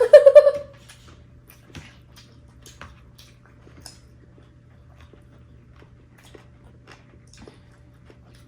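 A dog gives a short burst of barks right at the start, then only faint scattered clicks and chewing of someone eating a meal.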